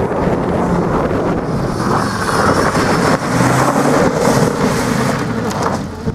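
Rally car driving fast past on a loose dirt and gravel track, its engine rising in pitch and tyres spraying gravel, with wind buffeting the microphone. It is loudest in the middle as the car passes close, then fades near the end as it pulls away.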